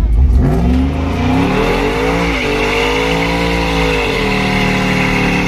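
Cammed GM 5.3-litre V8 truck engine, not yet tuned, revving up over about two seconds. After a brief dip it climbs and holds higher revs, then drops about four seconds in and runs steadier at lower revs.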